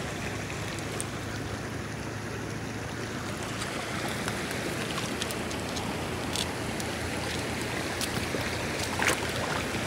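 Steady rush of flowing river water, with a few short sharp clicks scattered through it and a faint low hum underneath.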